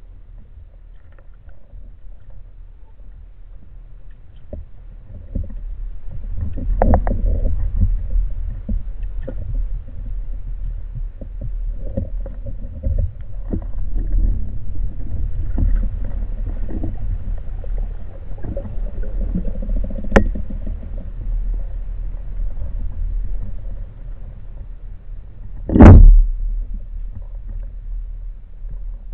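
Muffled underwater noise picked up by a camera on a speargun: a steady low rumble of water moving past the housing, growing louder about five seconds in, with scattered light clicks. Two sharp knocks stand out, the second and much louder one a few seconds before the end.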